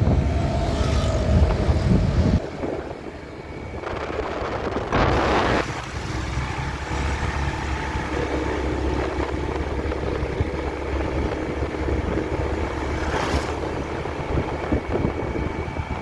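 Street traffic: motor vehicle engines running and passing, with a loud low rumble for the first two seconds, a rushing pass about five seconds in, then a steady engine drone.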